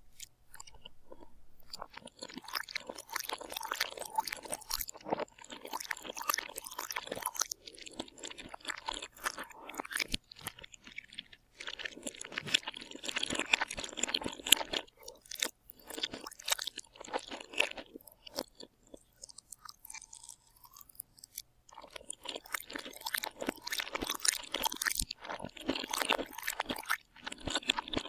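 A person chewing crunchy food, with dense crackling crunches in several stretches broken by brief pauses. The crunching is thinner for a few seconds about two-thirds of the way in.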